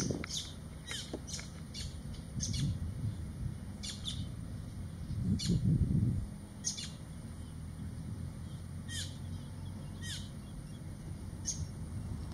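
Short, high bird chirps come about once a second, some dipping in pitch at the end, over a low rumble.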